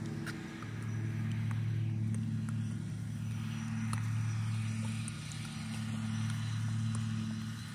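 Steady low hum of an engine or motor running at a constant pitch, with a few faint light clicks.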